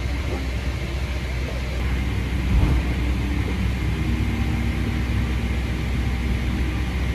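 Steady low rumble and air hiss inside a Boeing 777-300ER cabin at the gate, with a brief low thump about two and a half seconds in.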